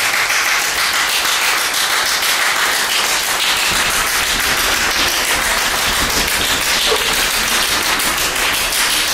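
Fast, steady hand clapping without any pause: one man clapping an unbroken rhythm that stands for working around the clock with no rest.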